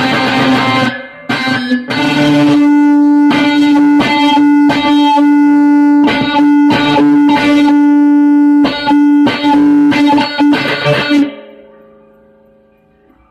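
Stratocaster-style electric guitar playing loud chords struck in a rhythm over a held note that rings steadily underneath. About eleven seconds in the playing stops and the last sound dies away.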